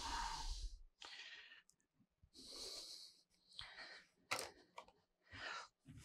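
Faint breathing close to the microphone: a series of short breaths, the first with a low rumble, and one sharp click about four seconds in.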